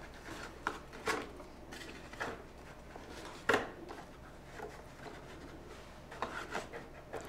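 Paper letter cards being pulled out of and slid into a wooden card stand: a series of faint, short rustles and scuffs, one a little louder about halfway through.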